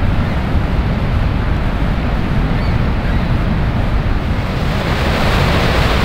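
Niagara Falls thundering: a steady, loud roar of falling water, with wind buffeting the microphone. It grows a little louder and hissier about five seconds in.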